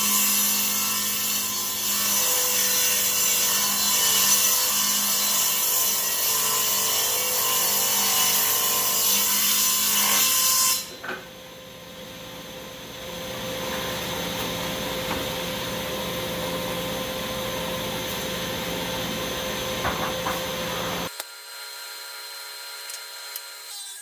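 Delta table saw ripping along the edge of a maple board, a loud cutting noise for about ten seconds. The saw then runs on with less load, a quieter steady hum, until the sound stops abruptly near the end.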